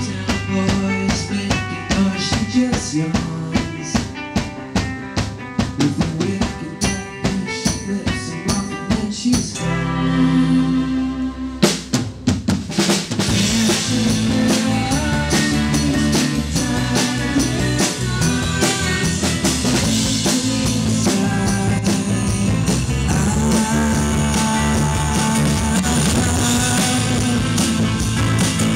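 Live band with a string section playing an instrumental passage without vocals. Drums and rhythmic chords run for about ten seconds, then a brief held chord, then a sharp drum hit. After that the full band plays on steadily.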